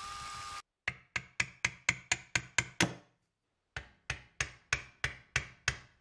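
An electric drill runs briefly and cuts off. Then come two runs of sharp hammer taps at about four a second, nine and then seven, with a short pause between them.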